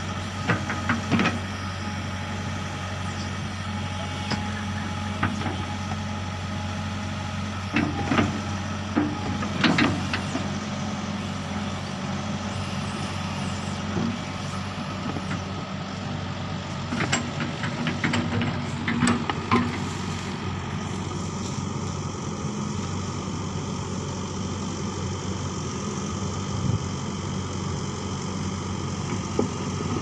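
Crawler excavator's diesel engine running steadily, with several sharp metal clanks from the steel track links and bucket while the thrown track is being refitted.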